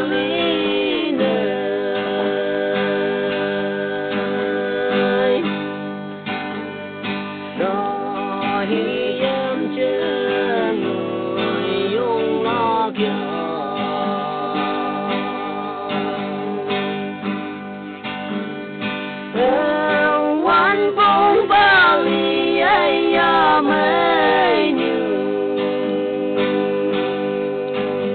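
A Konyak love song: a voice singing over strummed guitar, with the singing coming and going over the steady guitar.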